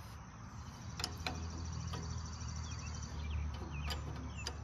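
A few sharp metallic clicks and taps as linkage parts on a Farmall A tractor are worked by hand, the loudest about a second in. Under them there is a low steady rumble, with birds chirping and a high insect trill.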